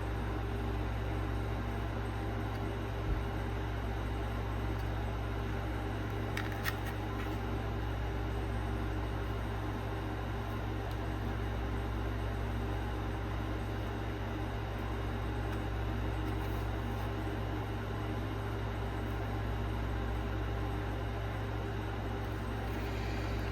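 A steady low mechanical hum with a few constant tones, like a running motor or fan, with two faint clicks about three and six seconds in.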